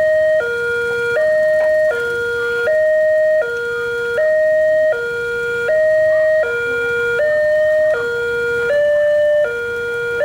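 Railway level-crossing warning siren sounding a continuous two-tone hi-lo alarm, switching between a lower and a higher tone about every three quarters of a second. The high tone's pitch wavers slightly from cycle to cycle, and the uploader calls it an error siren.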